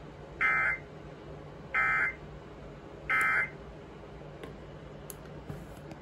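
NOAA weather radio receiver beeping three times: short, even, high beeps a little over a second apart, over a faint steady hum.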